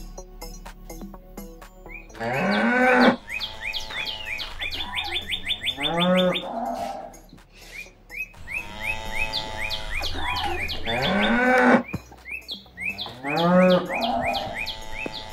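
Cows mooing: several long, drawn-out moos that rise and then fall in pitch. Birds chirp throughout.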